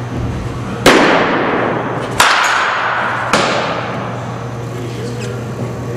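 Three sharp cracks of baseball practice, a little over a second apart, each ringing out in the long echo of an indoor hall, over a steady low hum.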